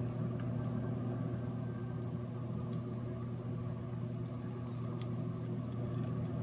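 A steady low hum from a small motor or fan, running evenly without change.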